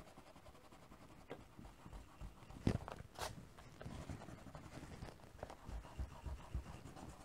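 Eraser rubbing pencil lines off paper in faint, uneven scrubbing strokes, with two sharper clicks a little under three seconds in.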